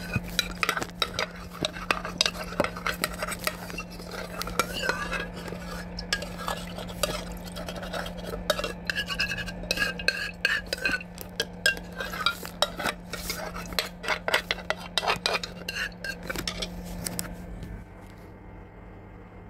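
Spoon stirring thick dal in a cooking pot, with repeated scraping and clinking against the pan that stops about two seconds before the end. A steady low hum runs underneath.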